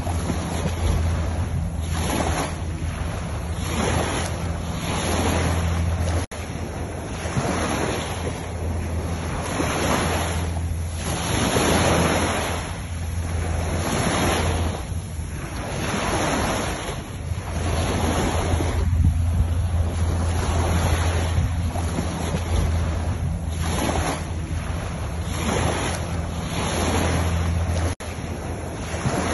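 Surf on a sandy beach: waves breaking and washing up, swelling and ebbing every second or two, with wind on the microphone and a low steady rumble underneath. The sound drops out briefly about six seconds in and again near the end.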